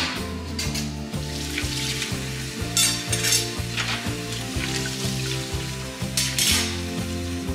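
Kitchen tap water running and splashing over stainless steel utensils as they are rinsed in the sink, with louder splashing surges at the start, about three seconds in and again near the end. Background music plays throughout.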